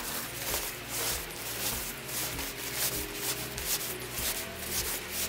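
Fabric rustling and swishing as a large, bulky sleeping bag is crammed by hand into its stuff sack, in repeated shoves.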